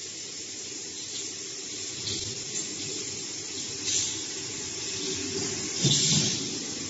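Steady hissing noise with short louder bursts of hiss about two, four and six seconds in, the last with a low thump.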